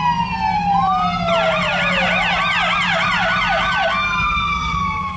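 Sirens of a fire department rescue ambulance and a police SUV crossing ahead, heard from inside a car over a low steady hum. A slow wail glides down and then back up, and for a few seconds in the middle a fast yelp warbles at about two or three cycles a second.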